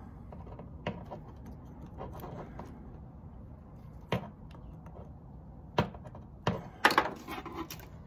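Plastic clicks and rattles from a washing machine's water inlet valve being handled while the wire connector is worked off its solenoid coil. A few scattered sharp clicks, with the loudest cluster near the end.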